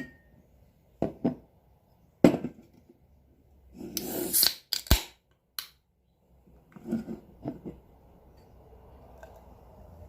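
Small metal can being tapped and handled: a series of sharp taps and clicks, with a brief scraping rustle about four seconds in.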